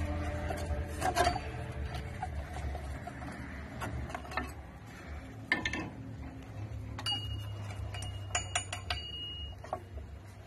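Metal drum-brake parts (shoes, return springs and adjuster) clicking and clinking as they are worked off the backing plate. A run of sharp metallic clinks with brief ringing comes about seven to nine seconds in.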